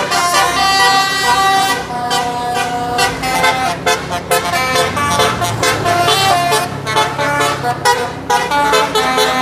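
Sumber Jaya bus's telolet horn playing a tune: a set of multi-tone horns sounding one note after another in quick steps, over a low steady drone.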